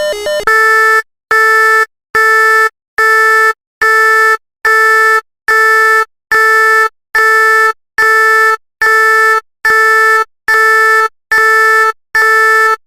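Synthesized emergency-alert alarm: a loud, buzzy electronic beep at one steady pitch, repeating about once every 0.8 seconds, each beep about half a second long.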